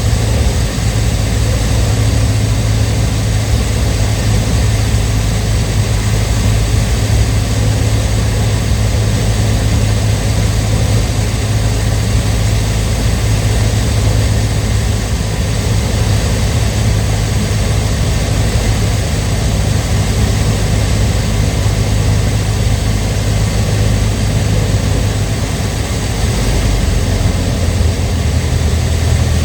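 Cessna 152's four-cylinder Lycoming engine and propeller running steadily with a strong low drone, which shifts slightly a few seconds before the end.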